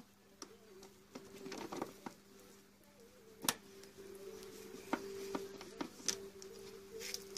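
Scattered clicks and knocks of a screwdriver on a hose clip and rubber intake boot as an air filter box is worked into place on a Honda XL125S, the sharpest click about three and a half seconds in, over a faint steady hum.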